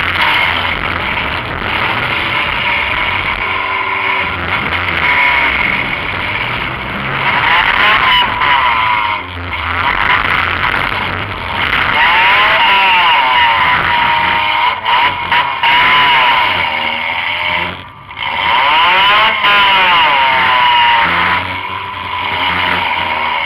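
Compact demolition-derby car's engine, heard loud from inside the car, running hard and revving up and down several times over a steady mechanical racket.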